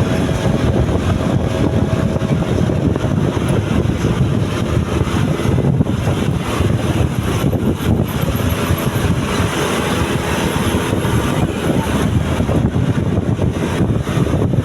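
Loud, steady road noise of moving vehicles and engines, with wind rushing over the microphone.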